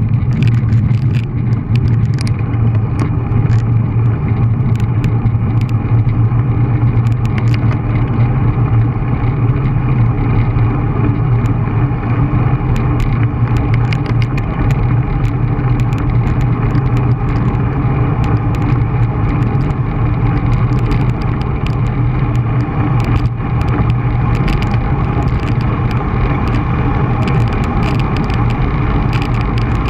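Steady, loud wind rush over an action camera's microphone on a moving bicycle, mixed with tyre and road noise, with frequent small clicks throughout.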